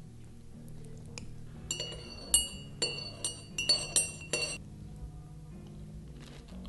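A metal spoon stirring in a ceramic mug, clinking against its sides in a quick run of about eight strikes, each ringing briefly, over soft background music.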